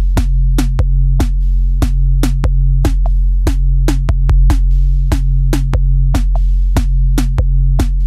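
Background music: an electronic drum-machine beat with sharp hits about every half second over steady low bass notes.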